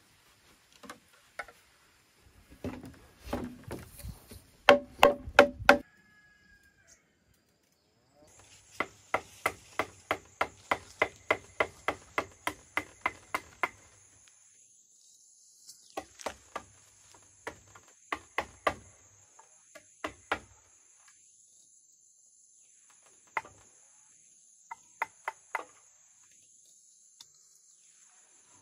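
Hard tool strikes on bamboo, each with a short ringing tone: four loud knocks about five seconds in, then a steady run of about three strikes a second, then scattered groups. A steady high insect drone of crickets runs behind from about a third of the way in.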